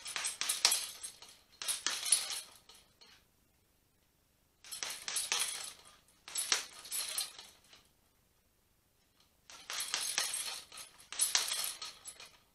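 Punches landing on a hanging heavy bag, its metal chain and hooks jangling and clinking with each flurry. There are three combinations, each heard as two quick clusters of hits a moment apart.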